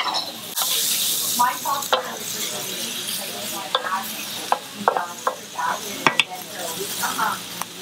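Shrimp, pork, onion and tomato sizzling in a hot nonstick skillet while a wooden spatula stirs and scrapes them around the pan. The sizzle surges about a second in, and the spatula knocks sharply against the pan a few times, most clearly about six seconds in.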